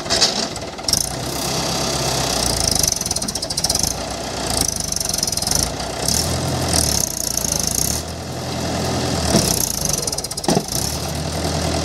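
Mahindra 575 DI tractor's four-cylinder diesel engine labouring under heavy load as it hauls a loaded trailer through deep mud, its revs swelling and easing again roughly every two seconds.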